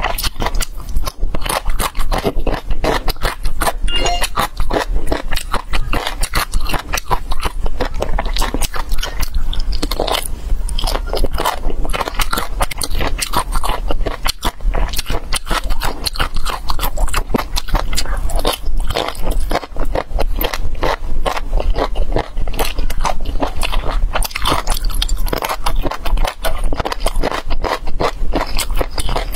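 Close-miked mukbang chewing: a person biting and chewing crunchy, chili-coated food in a dense, unbroken run of wet crunches and crackles.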